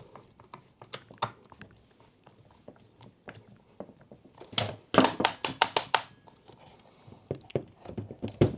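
Hand screwdriver doing up the screws of a hammer drill's plastic handle casing: scattered light clicks and knocks of tool against plastic, with a quick run of sharp clicks for about a second, some five seconds in.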